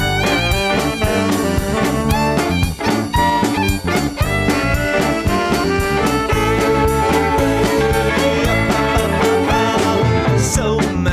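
Background music: an upbeat jazz-swing track with brass instruments and a steady beat.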